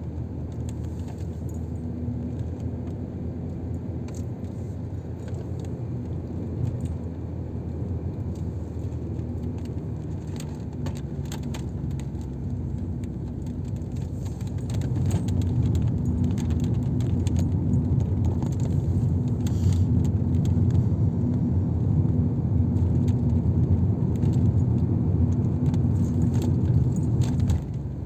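Car driving, heard from inside the cabin: steady engine and tyre rumble with a faint hum, and frequent small rattles and clicks. It gets noticeably louder about halfway through and drops back near the end.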